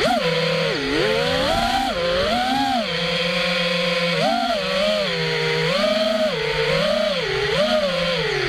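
Armattan Rooster FPV racing quadcopter's brushless motors and propellers buzzing, heard from the drone itself, the whine swooping up and down in pitch about once a second as the throttle is worked.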